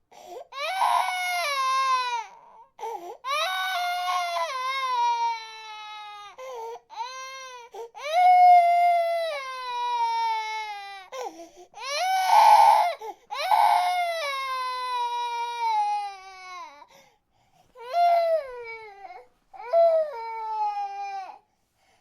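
A baby crying hard in a run of long wails, each falling in pitch and broken off by a short gasp for breath; the last few wails are shorter.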